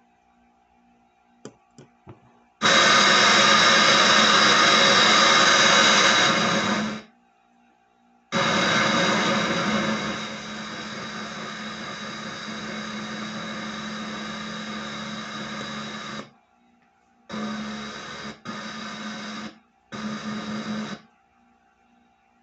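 Portable Bluetooth speaker's FM radio auto-scanning for stations. A few light clicks from the button come first, then loud bursts of radio static that cut in and out as the tuner steps and stores each channel: two long bursts of several seconds, then shorter ones of about a second each. A faint steady hum runs underneath.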